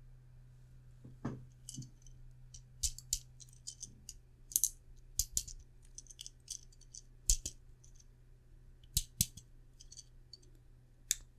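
Irregular small clicks and taps of hard 3D-printed plastic parts being handled and a printed button cover slid into place over a switch module.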